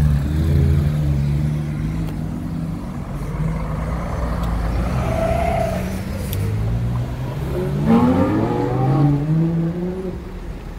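Supercar engines pulling away from a junction. A low running rumble gives way, about eight seconds in, to a loud engine note rising in pitch in two sweeps as a car accelerates hard, then fading near the end.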